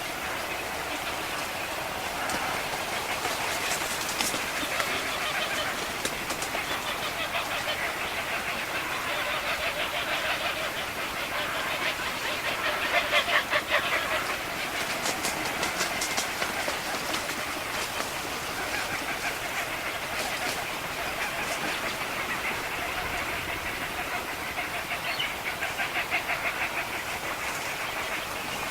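A flock of birds calling and chattering all at once in a continuous din, swelling louder about halfway through.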